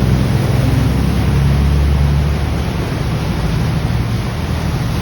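Canal passenger boat's engine running with a low, steady rumble over the wash of churned water; the rumble eases a little about halfway through.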